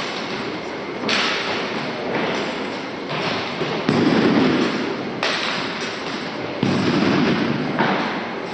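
A military drill team's unison foot stomps and slaps, sharp thuds every one to two seconds, each ringing on in the echo of a gymnasium.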